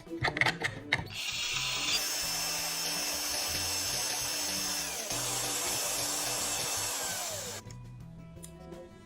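A handheld power tool runs steadily for about six seconds, then winds down, its pitch falling as it stops. A few sharp clicks come just before it starts, and background music plays underneath.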